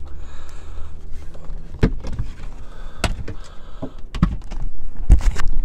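Four sharp knocks about a second apart, over a low hum that fades after the first second: a hand and the phone bumping against a car's rear parcel shelf while filming.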